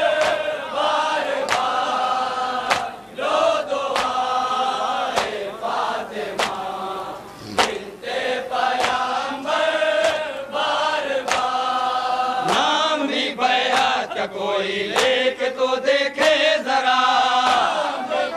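A group of men chanting a nauha, a Shia Muharram lament, in unison, over sharp slaps at a steady beat of roughly one a second, in the manner of matam, hands striking chests.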